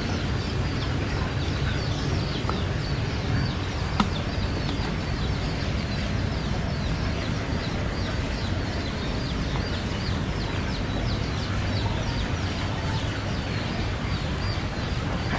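Outdoor ambience: many short, high bird chirps over a steady low rumble, with a single sharp click about four seconds in.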